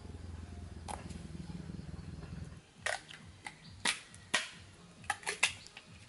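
A low steady rumble, then, after it drops away, a string of sharp pops and cracks from a small wood campfire, about eight in three seconds.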